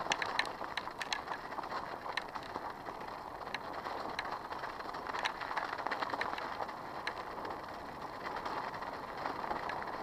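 Bicycle riding over packed snow: a steady crunching hiss from the tyres in the snow, with scattered sharp clicks and rattles from the bike at irregular moments.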